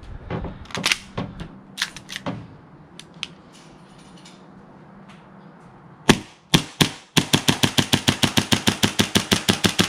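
A few handling clicks, then a custom-built, internally upgraded gas blowback airsoft pistol fires two single shots followed by a fast, even string of sharp pops, about seven a second.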